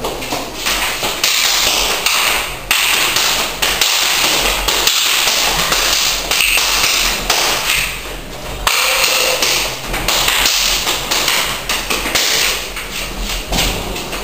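Rapid taps and thuds of hands and forearms striking and blocking in a close-range martial arts drill, with scuffling.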